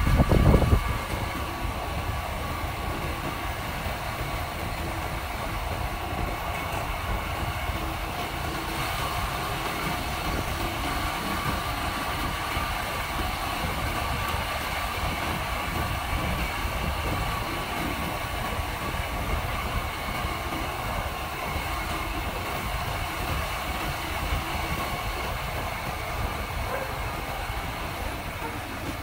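Motorcycle running at steady road speed, its engine and road noise under heavy wind rumble on the microphone, with a brief loud knock about half a second in.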